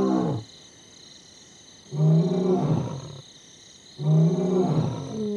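Male lion roaring in a territorial bout: a call trailing off at the start, then two deep roars about two seconds apart, each sliding down in pitch. The roaring is aimed at rival lions, with which prides call back and forth to size each other up.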